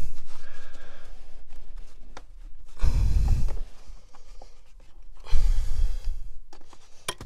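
HEPA cabin air filter being forced into a very tight-fitting housing, the filter and plastic scraping, with heavy exhales of effort about three and five and a half seconds in. A sharp click near the end.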